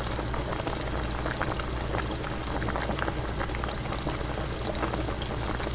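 Pork kimchi stew at a steady rolling boil in its pot: a continuous crackle of small bubbles popping.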